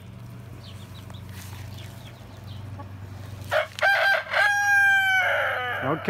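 Rooster crowing once, a full cock-a-doodle-doo about three and a half seconds in: two short notes, then a long held note that breaks into a rougher ending. Before it, only a low steady hum.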